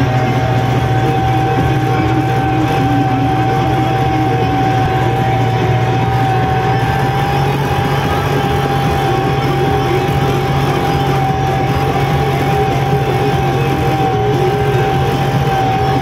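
Tractor engine running steadily under load, heard from inside the cab, with a steady high whine over the engine sound.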